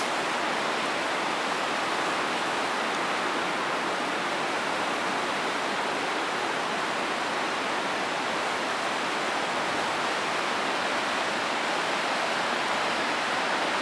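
River water rushing steadily through the current below a dam, an even, unbroken roar of moving water.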